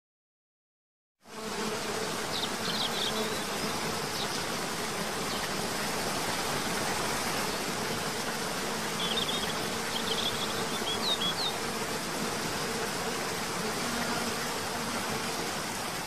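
Steady rushing of a cascading waterfall, starting suddenly after about a second of silence, with a faint low hum underneath. A few short, high chirps come about two seconds in and again around ten seconds in.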